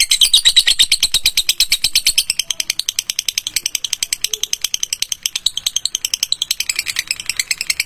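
Canary singing a konslet trill: a long, rapid rattling run of evenly repeated high notes, about a dozen a second, held without a break.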